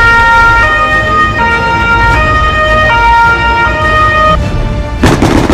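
Two-tone emergency-vehicle siren, steadily alternating between a high and a low note about every three-quarters of a second, stopping about four seconds in. Near the end comes a short, loud bang.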